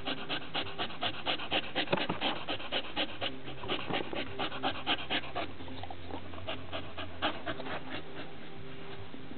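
Staffordshire bull terrier panting quickly with its mouth open, close to the microphone, about three breaths a second. After about five seconds the panting eases off to a few scattered breaths.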